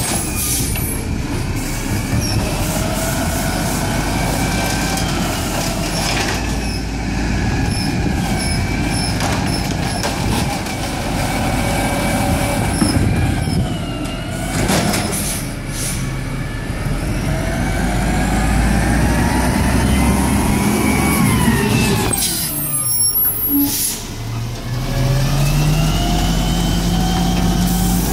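Peterbilt 320 garbage truck's diesel engine running as its Amrep Octo automated side-loader arm works off the hydraulics. The engine pitch rises and falls several times, and there are a few metallic knocks from the arm and cart, with air-brake hiss. Near the end the engine settles into a steady, higher hum.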